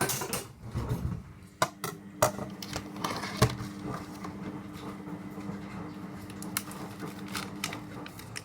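Scattered clicks and knocks of kitchen things being handled, over a steady low hum from an appliance that starts about a second in and cuts off near the end.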